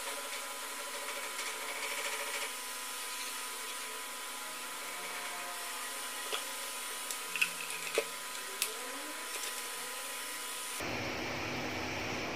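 A few light clicks and rubs of plastic connectors and wires being handled, the sharpest clustered a little past the middle, over a steady background hiss.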